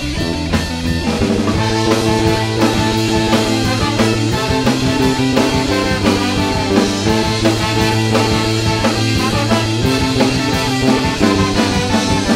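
Rock band playing live without vocals: guitar chords ringing over a steady drum kit beat, the song's instrumental outro.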